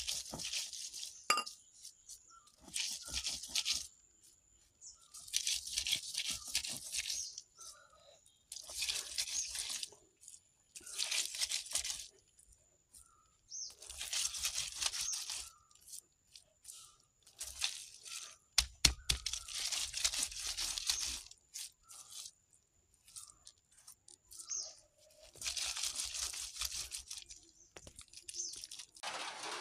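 Stone roller crushing chopped onion and chili flakes on a flat grinding stone: gritty, crunching strokes in bursts of a second or two with short pauses between, and a sharp stone-on-stone knock here and there.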